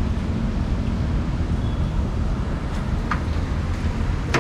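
Vehicle engine idling with a steady low hum, with a short click right at the end.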